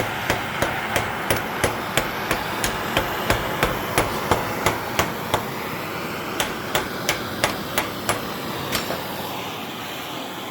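Hand hammer striking a metal rivet in quick, even blows, about three a second, peening over the rivet head on a well pulley. The blows pause briefly midway, then thin out and stop near the end.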